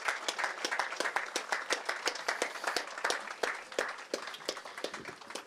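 Audience applauding with many separate hand claps, which thin out and stop near the end.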